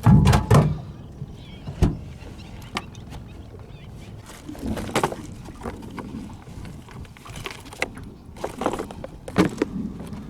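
Water splashing loudly as a large fish is let go over the side of a boat, then a sharp knock and a few more scattered splashes and handling noises on the boat.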